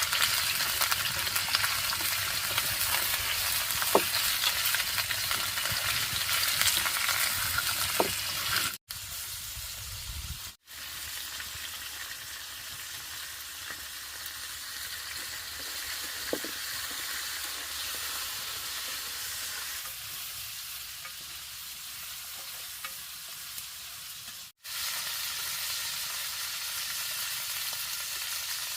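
Food sizzling as it fries in a pan, stirred now and then with a few light taps. The sizzle is loud for the first nine seconds or so, then settles to a quieter steady sizzle.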